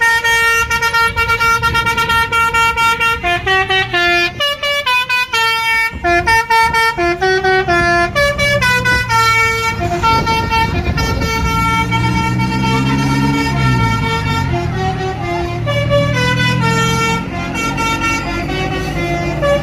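Basuri telolet multi-tone bus horn playing a tune: a run of held and quick notes stepping up and down in pitch, several tones sounding together.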